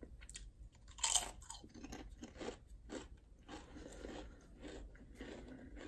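A Pringles potato crisp bitten with a sharp crunch about a second in, then chewed with a run of softer, fairly even crunches.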